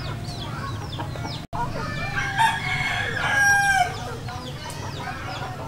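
A rooster crowing once, a long held call starting about two seconds in and lasting nearly two seconds, with chickens clucking around it.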